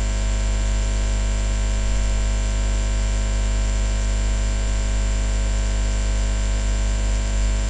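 Steady electrical mains hum with hiss in the recording, a low buzz with many even overtones and a thin high tone above it, unchanging throughout.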